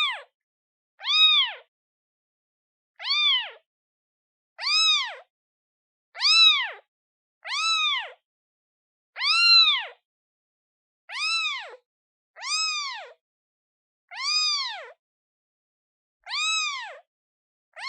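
Day-old newborn kitten meowing over and over, calling for its mother: short, high meows about every one and a half seconds, each rising and then falling in pitch.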